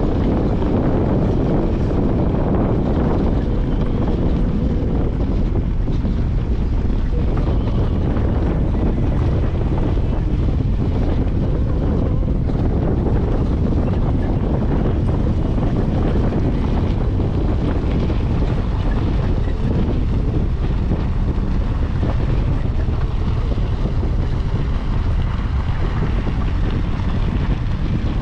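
Steady rush of wind buffeting the microphone, over the low rumble of a car driving on a dirt road.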